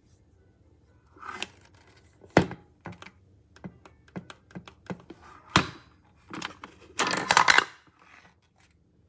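A string of irregular clicks, knocks and thunks, with a denser burst of rattling clatter about seven seconds in, like hard objects being handled.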